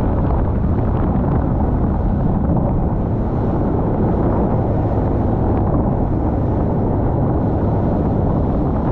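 Steady wind rumble buffeting the microphone on a boat out at sea, mixed with the low running of the boat and water noise.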